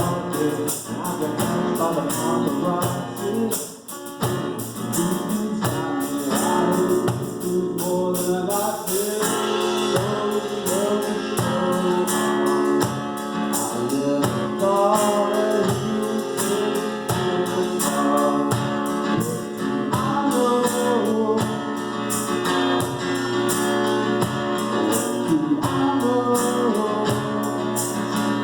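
Live acoustic duo playing a song: a male voice singing over acoustic guitar, with percussion keeping a steady beat.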